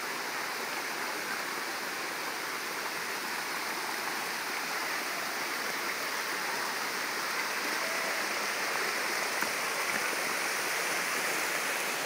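Steady rushing of waterfall and stream water, an even hiss with no breaks, growing slightly louder in the second half.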